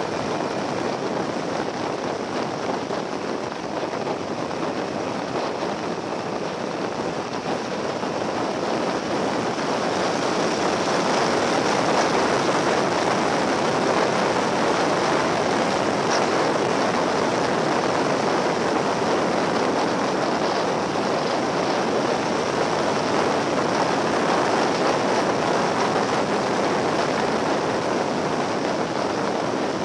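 Steady rush of wind and road noise from a Yamaha XT1200Z Super Ténéré motorcycle riding along at speed, picked up by its on-board camera. It grows louder about a third of the way in.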